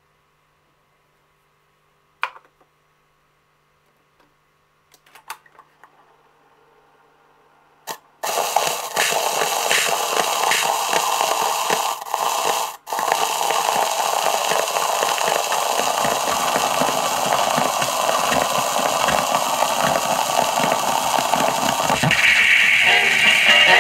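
A few handling clicks as the record goes on the turntable, then about eight seconds in the stylus drops onto a single-sided 78 rpm bootleg record, giving loud steady hiss and crackle of surface noise, which grows louder near the end as the music starts to come through.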